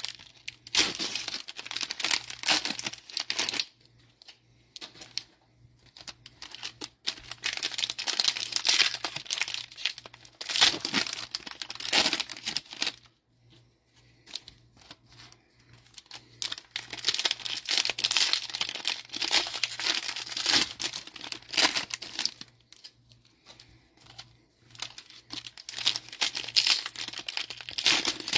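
Plastic wrappers of Panini Mosaic football card cello packs being torn open and crinkled by hand. The tearing comes in four stretches, with quieter pauses about four, fourteen and twenty-three seconds in.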